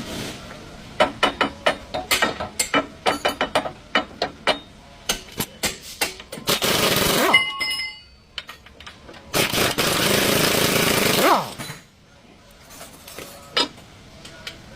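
Workshop tool noise on a GMC's stabilizer-bar bushes. First comes a run of sharp, irregular knocks, a few a second. Then there are two bursts of a pneumatic tool, and the second winds down with a falling whine.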